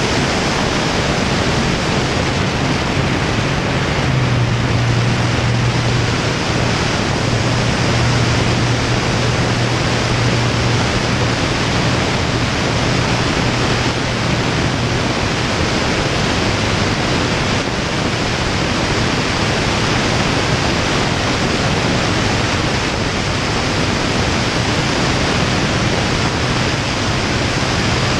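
Steady rush of wind over a wing-mounted camera on an XtremeAir XA42 aerobatic plane in flight, with the low drone of its Lycoming 580 engine and propeller underneath. The drone is strongest from about four seconds in until about halfway through.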